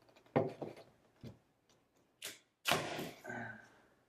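A knife cutting the packing tape on a cardboard shipping box: a few short sharp scrapes and knocks, then a longer, louder scrape near the end.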